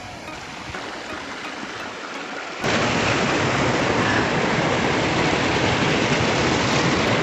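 Waterfall's rushing water: a loud, steady roar that cuts in suddenly about two and a half seconds in, after a quieter stretch.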